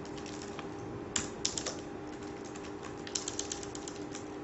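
Typing on a laptop keyboard: scattered key clicks, with a quick flurry about three seconds in, over a steady hum.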